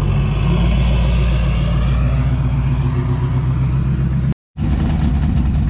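Lifted pickup truck's engine running steadily with a low hum as it rolls slowly over sand. The sound drops out for a fraction of a second about four seconds in.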